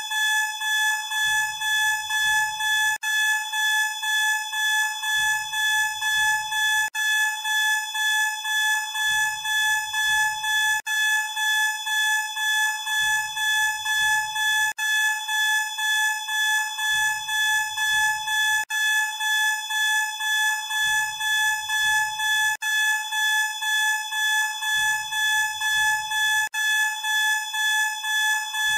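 Fire alarm sounder giving a continuous, loud, buzzing tone that throbs a couple of times a second, with a very brief break about every four seconds.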